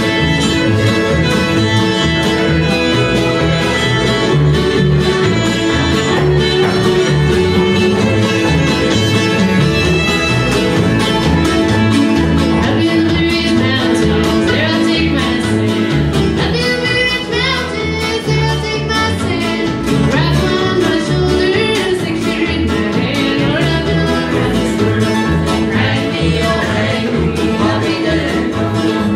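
String band playing live: fiddle, mandolin, acoustic guitar and upright bass with a steady bass pulse. The fiddle carries the lead at first, and a woman's singing comes in about halfway through.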